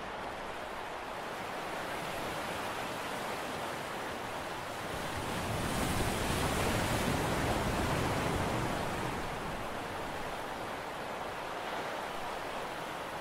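Wind and sea noise at the harbour's edge: a steady rushing hiss that swells for a few seconds around the middle.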